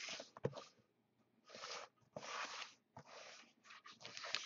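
A sealed cardboard shipping case being handled and slid around on a tabletop: several short, faint scraping rubs of cardboard with brief pauses between them.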